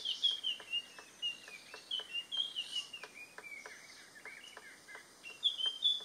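Quick, light taps of a white-browed piculet pecking inside a hollow bamboo stem as it bores out its nest, about four taps a second, with short, high, falling bird chirps over them.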